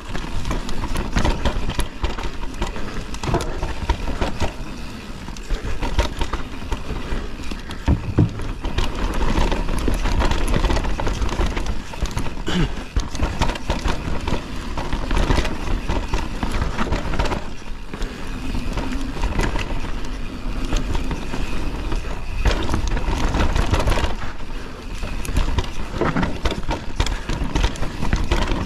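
Canyon Torque Mullet CF8 full-suspension mountain bike riding down a freeride trail. Its tyres rumble steadily over dirt and rocks, with frequent sharp rattles and knocks from the bike over bumps.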